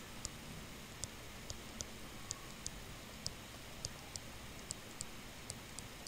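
Light clicks of a stylus tip tapping a tablet as letters are handwritten, about two a second at uneven spacing, over faint background hiss.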